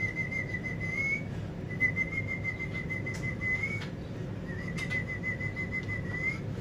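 Parrot whistling: three long, wavering whistles held on one pitch, each ending in a quick rising slide.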